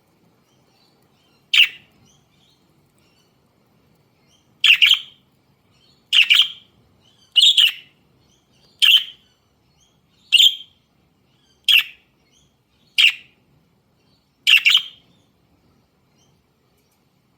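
Budgerigar giving nine short, loud chirps, one about every second and a half after a longer pause following the first.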